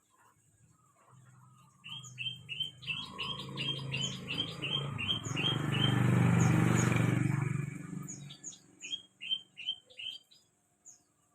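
Songbird singing in quick series of short, evenly repeated chirps. A louder low rumble swells up in the middle and fades out again before the bird carries on chirping.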